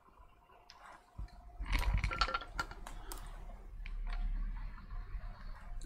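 Printed circuit board being handled and repositioned in a bench clamp: a flurry of small clicks, taps and rattles about a second in, then a low handling rumble.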